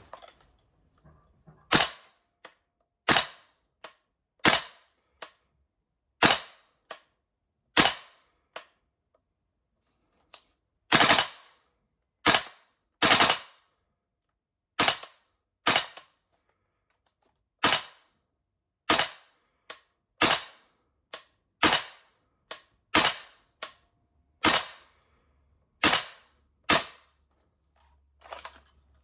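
VFC M16A2 gas blowback airsoft rifle fired in single shots, about twenty sharp reports roughly one every second or so, with a short pause about a third of the way through. A fainter click follows many of the shots.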